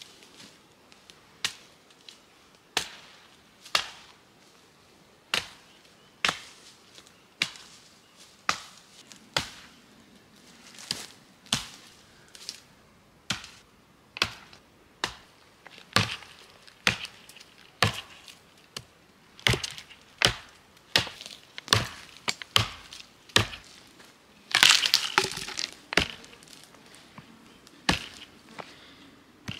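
Hatchet chopping into a pine pole: sharp blows about once a second, quickening to about two a second later on. Near the end a second-long burst of louder cracking as the wood splinters.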